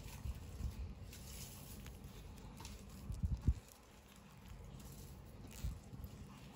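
Light handling noise of small plastic toy pieces and packaging: scattered soft taps and rustles, with a brief cluster of low thumps about three seconds in.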